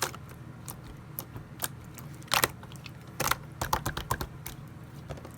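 Clear slime being squeezed and pressed by hand, giving irregular sticky pops and clicks, with a louder run of pops in the second half.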